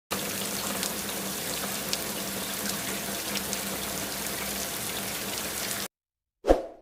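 Steady running water that cuts off suddenly after almost six seconds, followed by a short, low thump near the end.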